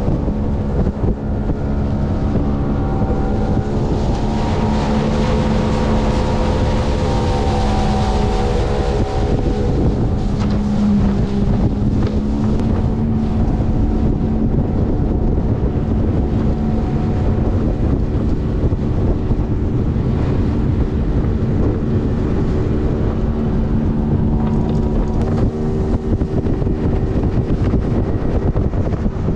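Jet boat engine running steadily at speed, its pitch dipping briefly and recovering about ten seconds in, with wind noise on the microphone.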